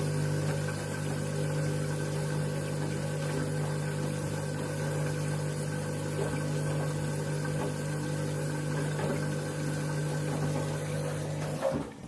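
Candy washing machine running mid-cycle: a steady motor hum with a constant pitch, which cuts off suddenly near the end.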